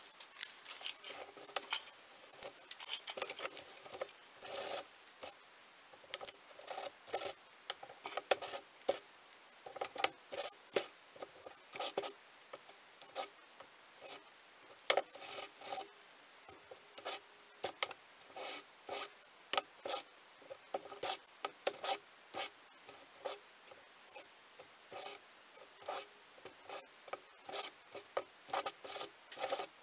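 Small stained pine intarsia pieces being sanded by hand: short, irregular scratchy strokes in quick runs with brief pauses. The sanding takes off the rough shellac coat before the clear gloss goes on.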